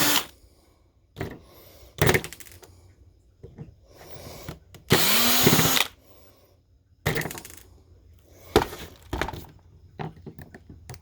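Power drill-driver run in a short burst of about a second, its motor whining up in pitch as it drives a screw out of the hard-drive hardware, with scattered clicks and knocks of small metal parts being handled.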